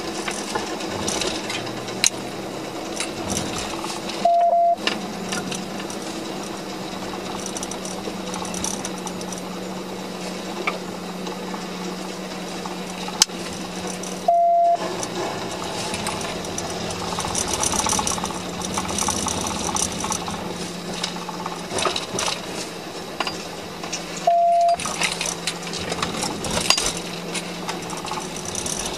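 Steady road and engine noise inside a patrol car driving at pursuit speed, with a constant low hum. A short beep sounds three times, about ten seconds apart, briefly cutting out the other sound each time.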